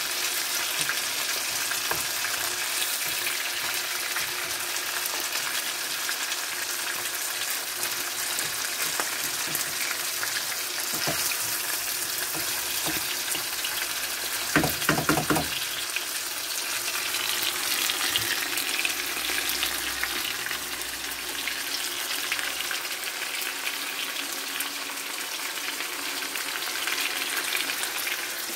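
Chicken pieces and chopped onions frying in oil in a frying pan, a steady sizzle as a wooden spatula stirs them. About halfway through there is a brief cluster of sharp knocks, the loudest sounds, as the spatula strikes the pan.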